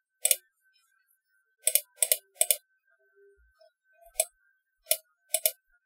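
Computer mouse clicks: about eight or nine short, sharp clicks at uneven intervals, several in quick pairs, as menu items and controls are selected.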